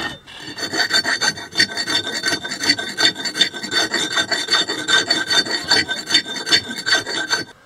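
Steel hand file scraping across the steel of a rusty axe head in quick, rough back-and-forth strokes, with a faint metallic ring. It is cleaning up the middle of the head, and the strokes stop near the end.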